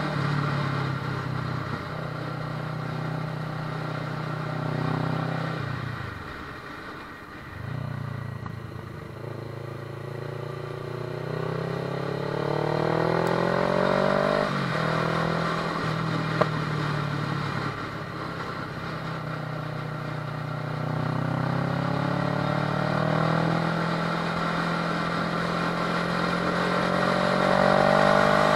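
Kawasaki ER-6n's parallel-twin engine under way, pulling up through the revs in repeated rising sweeps and dropping back at the gear changes, with a dip where the throttle eases off about six to eight seconds in. A single sharp click about sixteen seconds in.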